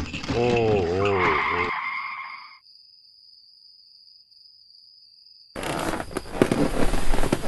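Wavering, gliding squeals die away about two seconds in, leaving a faint steady hiss. From about five and a half seconds comes a busy clatter of hooves and a rolling cart.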